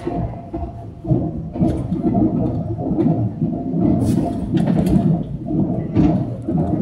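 Running noise heard inside a passenger car of a Taiwan Railways Puyuma Express, a TEMU2000 tilting electric multiple unit: a steady low rumble from the wheels and running gear, with a few sharp clicks at irregular moments.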